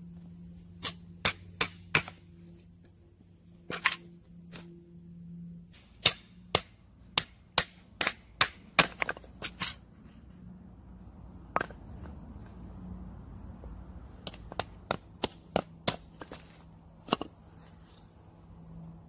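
Sharp wooden knocks, about two dozen in uneven runs of roughly two a second: a knife being batoned down through birch wood to split a log into planks for carving.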